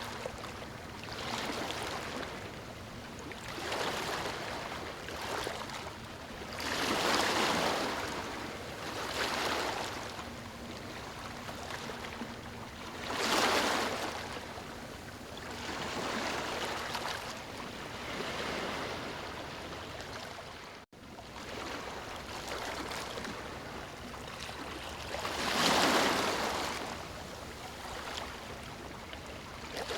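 Ocean waves breaking and washing up a sandy shore in repeated surges every few seconds, a few bigger breakers louder than the rest. The sound cuts out for an instant about two-thirds of the way through.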